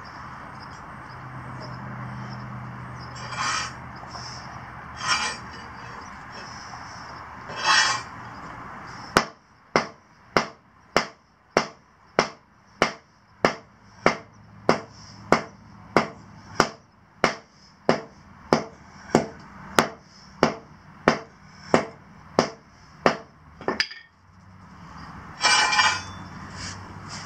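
Short-handled sledgehammer pounding down a hump in an asphalt driveway: a steady run of about thirty sharp blows, about two a second, starting about nine seconds in and lasting some fifteen seconds. A few scraping sounds come before the blows, and a louder scrape comes near the end.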